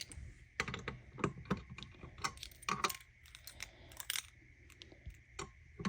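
Keys jingling with scattered light metallic clicks, as a key is handled and worked at a fire alarm pull station.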